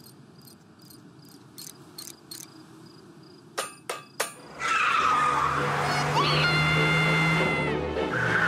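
Cartoon sound effects: a quiet night ambience of chirping crickets with a few sharp metallic clanks of a wrench. Then, about halfway, a loud electronic hum with wavering, gliding tones over it sets in and holds.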